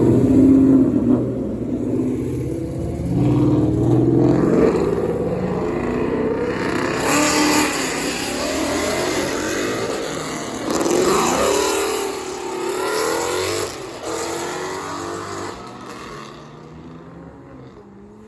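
Loud cars revving hard and driving past, engine pitch rising and falling through the revs, with the sound dying away over the last few seconds.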